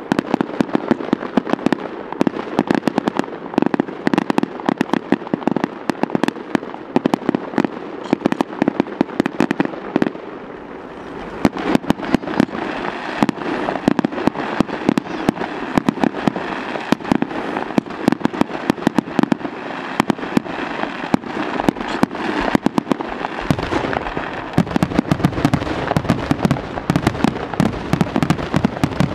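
Fireworks display: a rapid barrage of aerial shell bursts and crackling reports, many a second, with a brief lull about ten seconds in and a deeper rumble building near the end.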